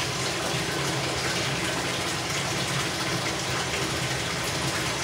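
A steady rushing noise with a low hum under it, unchanging throughout.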